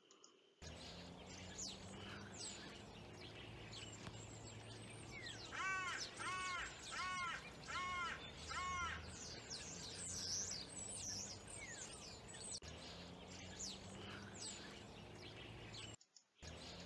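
Outdoor recording of many wild birds chirping and calling all at once over a steady low background rumble. In the middle, one bird gives five harsh caws in a row, about three-quarters of a second apart.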